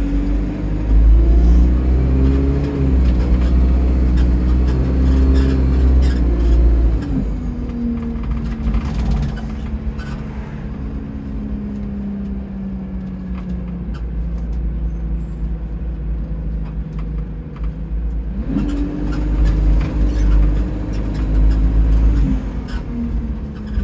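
Diesel bus engine pulling hard for several seconds, easing off with a slowly falling tone, then pulling away again near the end. A faint high whistle rides over the first pull, the sound of the turbo leaking.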